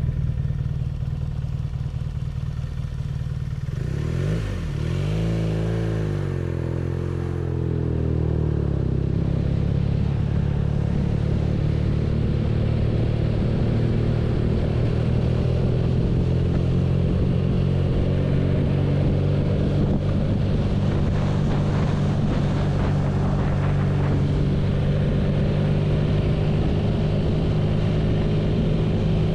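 BMW R nineT's boxer twin engine running. Its pitch swings up and down a few times about four seconds in, then it settles into a steady drone.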